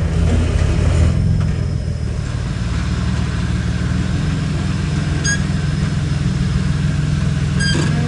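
Rock-crawling buggy's engine running at low revs as it crawls slowly over boulders, a steady low drone that is a little louder for the first two seconds.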